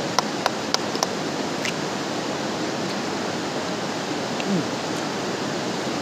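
Mountain river rushing steadily, with a few sharp clicks in the first second.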